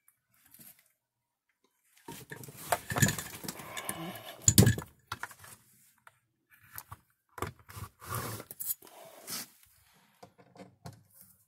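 Handling noises: rustling, scraping and clicks as a multimeter and its test leads are picked up and moved about, with a louder knock about four and a half seconds in. Lighter clicks and rustles follow.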